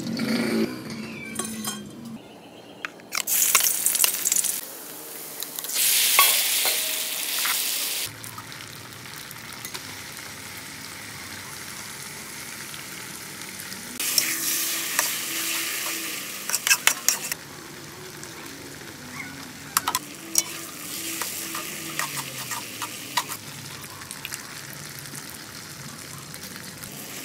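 Food frying in hot oil in a steel wok: a steady sizzle that swells loudly three times. A metal wok spatula scrapes and clinks against the pan, with most of the clinks in the second half.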